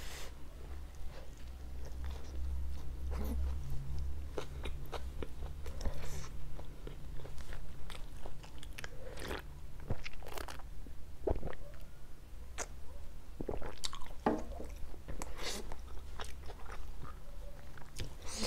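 Close-up mouth sounds of a person biting and chewing pizza: irregular wet chewing with crisp crunches of the baked crust, over a low steady hum.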